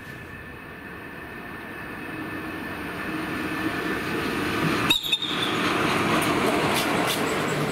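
Class 140 electric locomotive hauling a freight train through a station at speed: the rumble of wheels on rails grows steadily louder as it approaches. About five seconds in, as the locomotive goes by, a brief gust buffets the microphone, and the rolling noise of the wagons follows.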